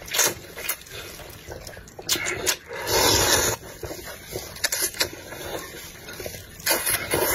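A person slurping long starch noodles out of spicy broth, close up. Loud slurps come just after the start, a longer one about three seconds in, and another near the end, with small wet mouth clicks between them.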